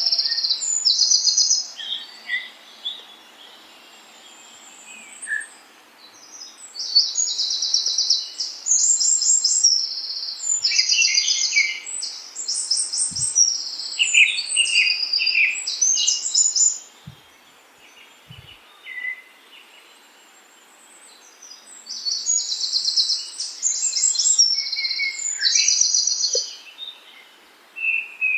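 Songbird singing: bouts of rapid, high-pitched trilled and chirping phrases, broken by pauses of several seconds, over a faint steady outdoor hiss.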